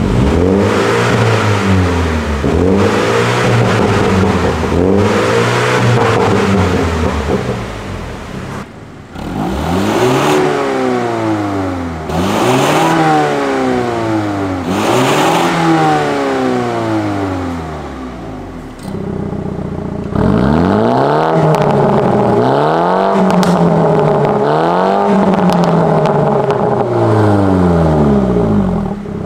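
BMW M135i's turbocharged 2.0-litre four-cylinder revved repeatedly while stationary, the engine note rising and falling with each blip. For the first third it runs through the stock exhaust, then through a Fi Exhaust valvetronic catback with its valves closed. From about two-thirds in the valves are open, and the revs are plainly louder and brasher.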